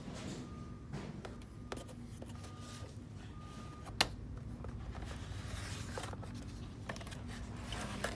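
Store background hum with a faint beep repeating for the first three seconds. Scattered handling clicks and knocks, the sharpest about four seconds in. Near the end, a cardboard grow-kit box is pulled off the shelf.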